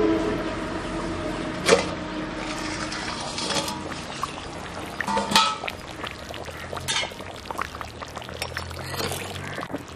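Thick fish curry simmering in an earthen pot, bubbling with many small pops and plops, with a sharp metal clink about two seconds in as the steel lid comes off.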